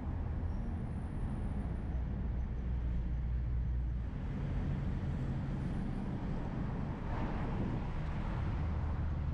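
Steady low engine rumble and road noise of a vehicle driving through city traffic, with a brief louder rush of noise about seven seconds in.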